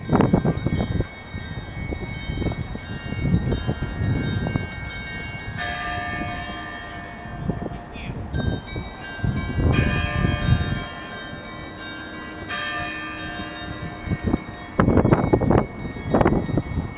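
Church bells of Saint Sophia's in Kyiv ringing together, several bells at different pitches. Fresh strikes come about every three to four seconds, and each tone hangs on. Loud irregular low rumbles run under them, heaviest at the start and again near the end.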